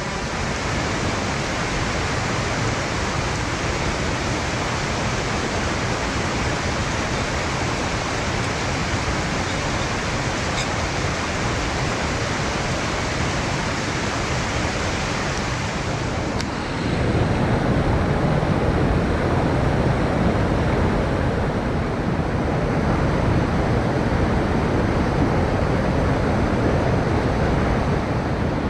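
Steady rush of a mountain stream swollen by typhoon rains. About two-thirds of the way through it changes abruptly to a louder, deeper rush.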